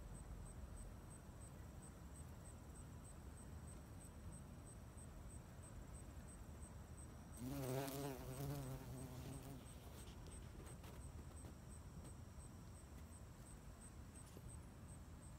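Bumblebee buzzing in flight close to the microphone for about two seconds, starting about seven seconds in: a low hum that wavers in pitch. The rest is faint background hiss.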